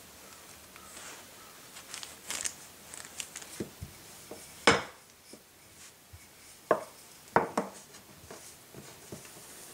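Food preparation on a wooden board: irregular taps and knocks from a knife or utensil. The sharpest knock comes about halfway through, with two more a little later.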